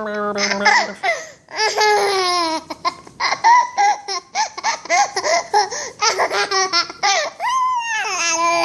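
A baby laughing hard in repeated bursts of quick giggles, broken by high squealing glides.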